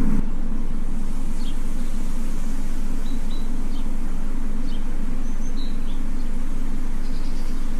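A steady low mechanical hum, with a few faint short high chirps in the middle.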